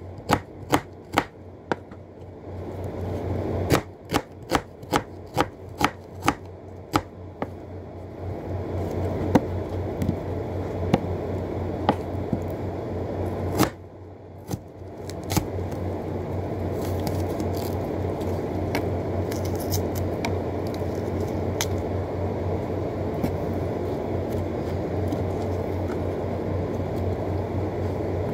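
Kitchen knife cutting a red onion, the blade knocking on the board in sharp taps about twice a second through the first half, then only now and then. A steady low hum and rushing noise run underneath and grow louder in the second half.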